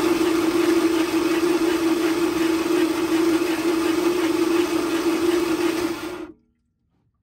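Boat motor running flat out at a steady high pitch, then cutting out abruptly about six seconds in. The owner puts the failure down to the head gaskets.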